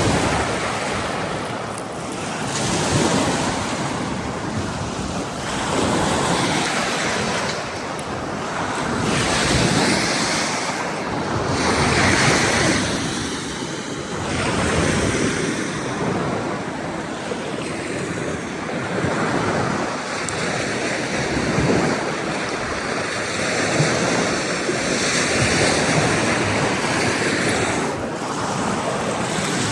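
Ocean surf breaking on a beach, the rush of the waves swelling and easing every few seconds, with wind on the microphone.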